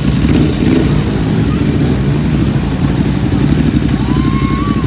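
Ducati motorcycle's twin-cylinder engine idling steadily close up, a dense low throb of firing pulses.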